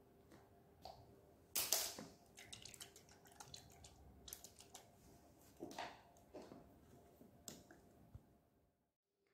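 Faint clicks and crinkles of a small plastic dropper bottle being handled and squeezed, with the loudest click a little under two seconds in.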